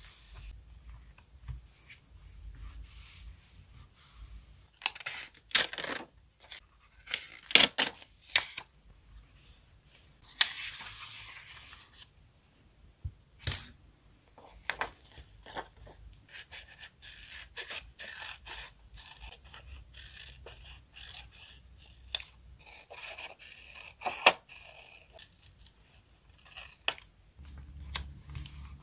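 Paper crafting sounds: small scissors cutting a card sheet and paper tearing, with rustling, scraping and light taps as paper pieces are handled and laid on a notebook page. The loudest snips and tears come in a cluster in the first third, with softer handling after.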